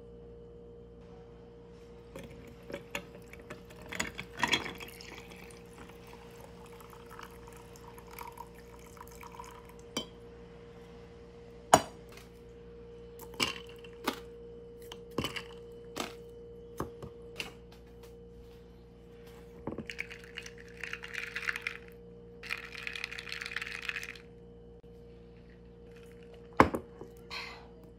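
Iced coffee being made: coffee poured over ice cubes in a glass mason-jar mug, with the ice clinking sharply against the glass many times and a stretch of pouring noise near the end, over a steady low hum.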